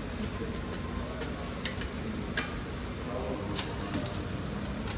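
Several scattered sharp clicks and light clinks over a steady low background hum.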